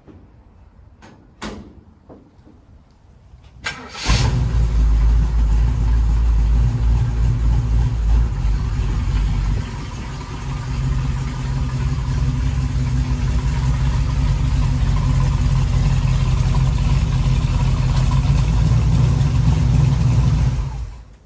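A 1936 Chevrolet coupe's small-block Chevy 350 V8 starts after a couple of clicks and catches about four seconds in. It runs steadily, briefly quieter around ten seconds, then is shut off just before the end.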